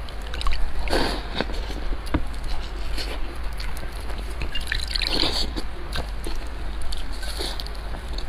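Close-miked wet eating sounds of Chinese food being eaten: irregular chewing and smacking clicks, with a few longer wet bursts about a second in and again around five seconds.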